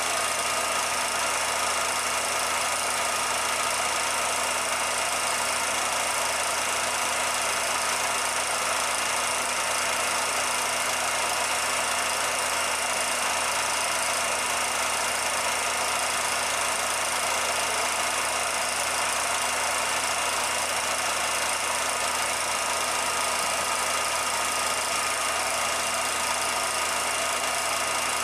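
Steady, unchanging machine-like running noise with an even hiss.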